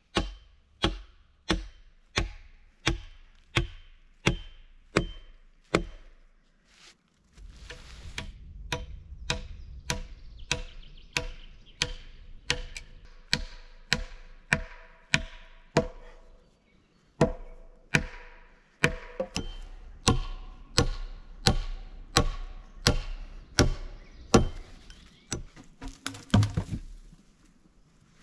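Hammer blows on log frame timbers, struck in a steady rhythm of about three blows every two seconds, each ringing briefly. There are two short pauses along the way, and scuffing near the end.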